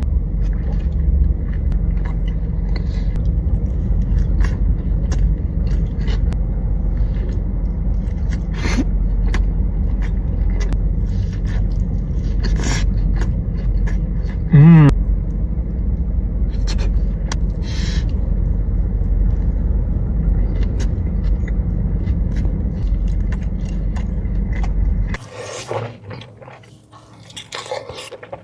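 Close-miked eating of sushi: scattered wet clicks and smacks of chewing over a loud, steady low rumble. There is a short hum about halfway through, and the rumble cuts off suddenly near the end.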